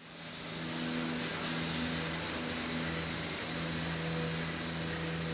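Orbital sander running against a car body panel, a steady sanding noise with a low hum beneath it; it fades in over the first second.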